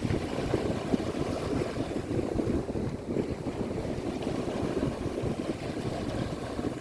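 Steady low rumble of wind buffeting the microphone, mixed with the wash of sea water.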